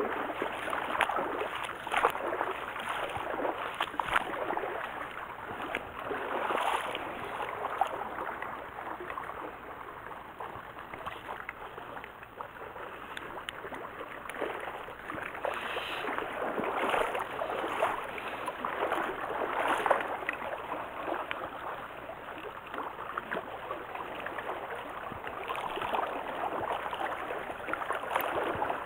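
Stream water running, a steady rush with uneven swells of splashing and gurgling.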